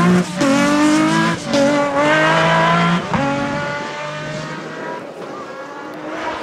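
Off-road rally car accelerating hard away down a dirt stage, its engine rising in pitch through the gears with several quick upshifts. Fading as it pulls into the distance.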